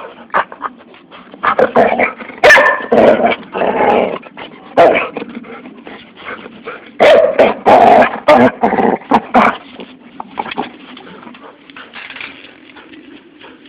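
Two dogs, a husky-type dog and a black dog, play-fighting close to the microphone with barks, growls and yips. The noise comes in two loud, choppy spells, one starting about a second and a half in and one around seven seconds in, and is quieter near the end.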